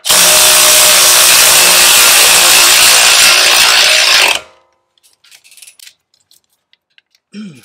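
Cordless electric ratchet running a bolt in on a truck's front suspension: a loud, steady mechanical run of about four and a half seconds that stops suddenly, followed by a few faint clicks.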